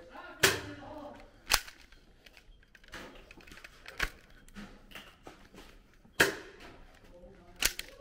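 Spring-powered Nerf foam-dart blasters firing: a string of sharp snaps, the loudest about half a second in and about six seconds in, with fainter clicks between.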